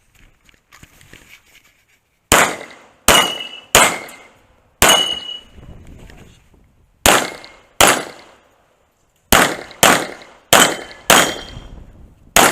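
Pistol shots fired on a match stage: about eleven sharp cracks beginning about two seconds in, mostly in quick pairs with short gaps between strings. Several are followed by a brief ringing tone.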